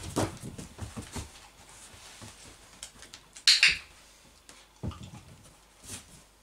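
A dog's paws knocking against a wooden chair and tapping on a wooden floor as it jumps down and repositions. About three and a half seconds in, a training clicker gives one sharp, bright click, heard as a quick press-and-release double click, marking the dog's behaviour.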